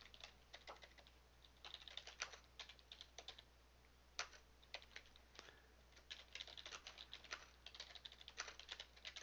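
Faint typing on a computer keyboard: irregular runs of quick keystrokes, with a short lull about four seconds in and a busier run in the second half.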